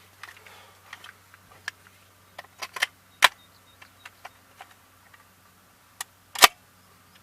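Scattered clicks and clacks of a Hi-Point 4095TS carbine being handled and readied to fire, the two loudest sharp clacks about three seconds in and near the end.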